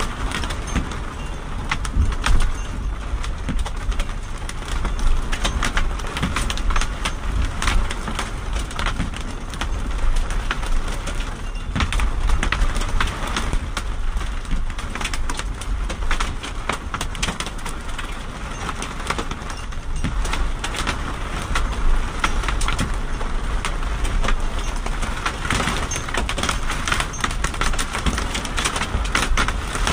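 Small hail and rain pelting a car's roof and windshield, heard from inside the cabin: a dense, steady patter of sharp ticks over a low rumble.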